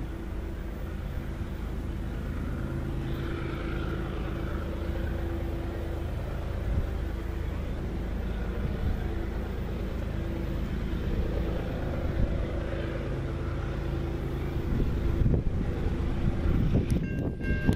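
Diesel locomotives of an approaching freight train working under power: a steady low engine drone that grows louder. In the last second the locomotive horn begins to sound.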